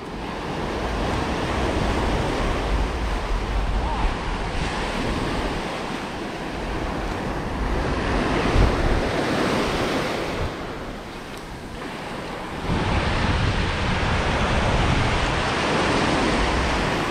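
Ocean surf breaking and washing up a sandy beach, swelling and ebbing with each wave, with a fresh wave surging in about two-thirds through. Wind buffets the microphone throughout.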